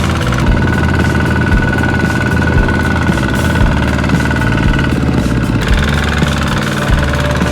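Walking tractor engine running steadily under load.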